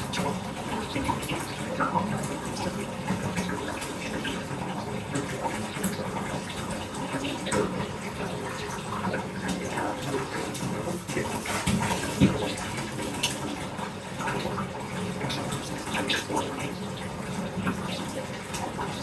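Bath tap running into a filling bathtub: a steady rush of pouring water with small irregular splashes.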